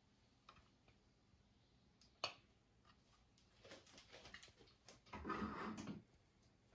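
Quiet handling noises from a Lego brick model machine gun: a few light plastic clicks, one sharper click about two seconds in, then rustling and a second-long scuffing noise about five seconds in.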